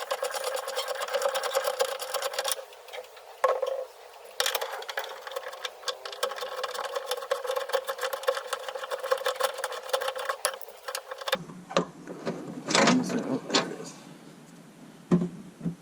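Ratchet wrench clicking rapidly in long runs, with two short breaks, as the engine mount's bolts are backed out. A few loud knocks near the end as the mount is worked loose.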